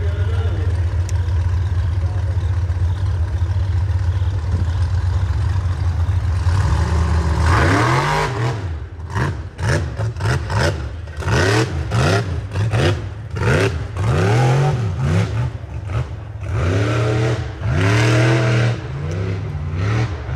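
Rock racing buggy's engine running steadily, then from about seven seconds in revved hard again and again, the pitch rising and falling with each stab of the throttle, with sharp knocks and clatter mixed in.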